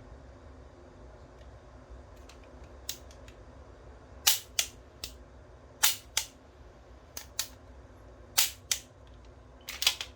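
Toy Beretta M9 pistol snapping as it is worked and fired: sharp plastic-and-spring clicks, mostly in pairs about a third of a second apart, with a quick cluster near the end and a few faint ticks before the first loud ones.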